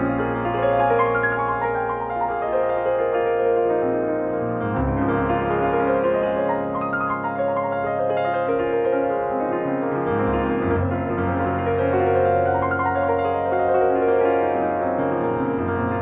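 Background music: a slow, gentle piano melody over sustained low bass notes.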